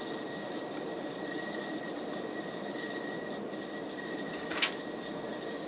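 1986 Casablanca Delta II ceiling fan running on high: a steady rushing hum with a thin, constant high tone, the noise of its worn bearings, which are due for replacement. A brief sharp sound near the end.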